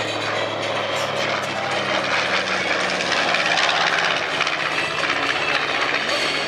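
North American B-25J Mitchell bomber making a pass overhead, the drone of its twin Wright R-2600 radial engines and propellers steady and loud.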